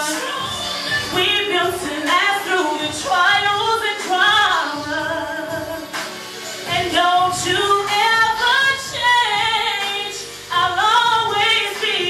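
A woman singing live into a handheld microphone, holding notes and sliding between them, with a brief break about ten seconds in.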